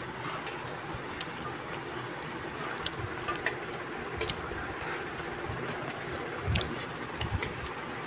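Steady room noise with scattered light clicks of a steel spoon against a steel bowl, and one soft low bump past the middle.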